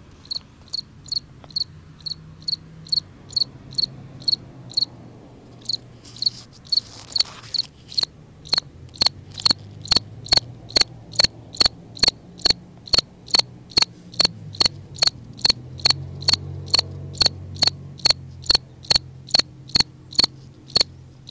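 Cricket chirping close by: short, evenly spaced high chirps, about three a second, with a brief pause near the start. A faint low hum lies underneath, and there is a short rustle about seven seconds in.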